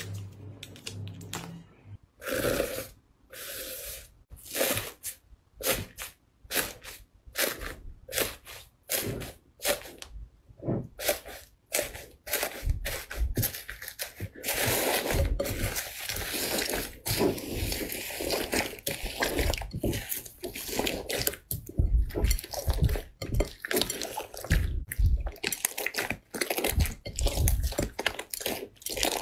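Crunchy slime being squeezed and pressed by hand, making a run of short crunching crackles in quick succession. About halfway through there is a longer unbroken stretch of crackle, and dull low thuds come in near the end.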